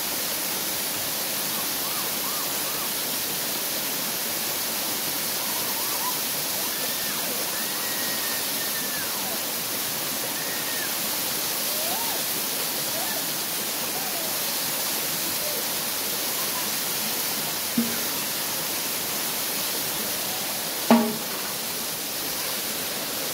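Steady rush of running water, with faint calls in the background. Two short knocks, the louder one about 21 seconds in.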